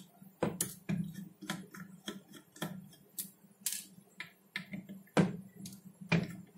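Screwdriver clicking and ticking against the screws of a Seagate FireCuda hard disk's circuit board as they are undone: irregular light taps, with a faint steady low hum underneath.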